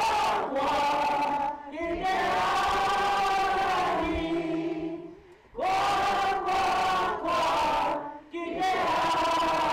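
A group of voices singing a Māori action song in unison, with held notes in phrases that break briefly for breath about every three seconds.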